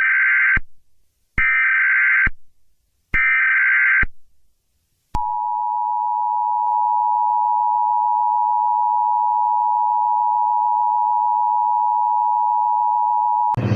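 Emergency Alert System tones: three bursts of digital SAME data, each about a second long with about a second's gap between them. Then the steady two-tone EAS attention signal is held for about eight seconds and cuts off.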